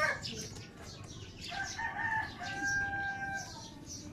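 A rooster crowing: a louder crow is just ending at the start, and a fainter, drawn-out crow runs from about a second and a half in for about two seconds.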